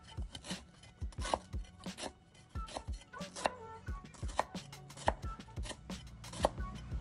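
Cleaver chopping and mincing sliced lemongrass on a thick wooden chopping block: quick, slightly uneven knocks, about three a second.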